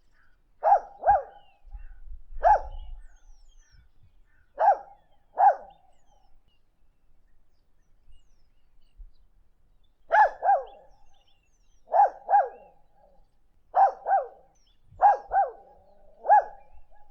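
A dog giving short, pitched barks, mostly in quick pairs, each dipping in pitch. There is a pause of a few seconds midway, then the pairs come faster.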